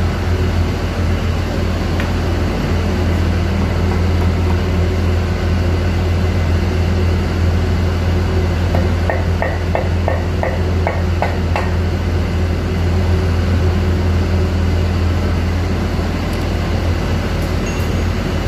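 Steady low drone of shipboard machinery with a strong hum. About halfway through comes a quick run of about eight light taps, roughly three or four a second.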